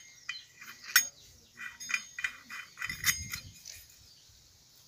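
Metal clinks and light scraping as a steel segmented diamond cutting blade is handled and seated onto an angle grinder's spindle, about a dozen small knocks with brief ringing, the sharpest clink about a second in.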